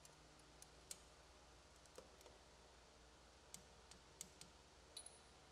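Faint, irregular metal clicks from a torque wrench on a snowmobile spark plug as it is tightened to specification, about ten small clicks over a few seconds against near silence.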